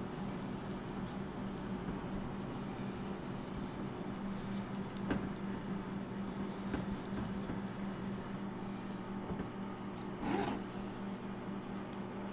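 Knife slicing and trimming fat from raw beef rib on a plastic cutting board: soft wet squishing and cutting noises with a few light knocks, the loudest about ten seconds in, over a steady low hum.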